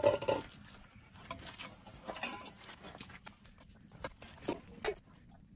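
A stainless steel ladle clinking and knocking against a stockpot and metal bowls while soup is dished out: scattered light clicks and knocks, after a short louder sound right at the start.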